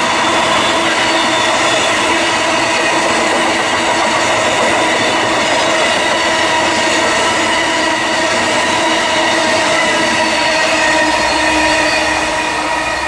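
Amtrak Northeast Regional electric passenger train's cars passing at speed: a loud, steady rush of wheels on rails with several steady whining tones. It fades near the end as the rear of the train moves away.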